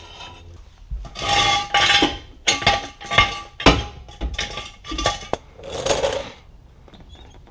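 Steel jack stands clanking and rattling as they are handled, a series of sharp metal knocks with a brief ringing.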